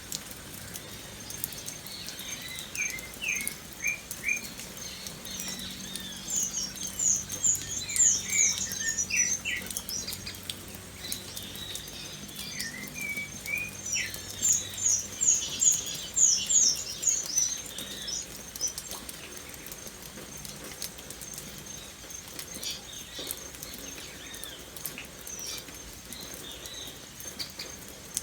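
Birds chirping in quick runs of short, high notes, two busy runs standing out, over a steady patter of light rain.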